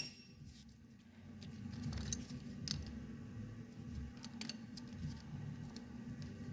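Scattered light metallic clicks and rattles as an AN hose fitting is handled and threaded together by hand on braided hose, over a low steady hum.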